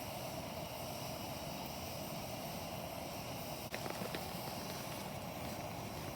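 Steady outdoor rushing noise, with one sharp click a little past halfway and a few small ticks just after it.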